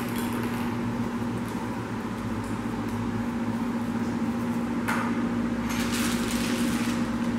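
A steady low electrical hum in the background, with brief crinkling of a plastic piping bag being handled and shaken out about five and six seconds in.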